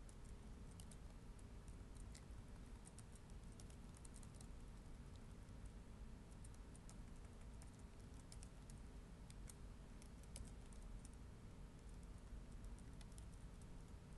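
Faint, irregular keystrokes of typing on a computer keyboard, coming in short clusters, over a low steady hum.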